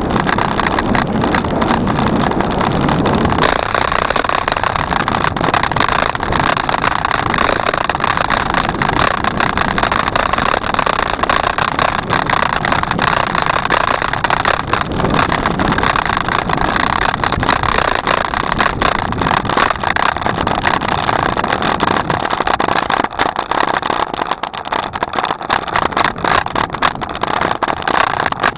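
Steady rush of wind and road noise on the microphone of a camera carried on a moving bicycle, with frequent crackles.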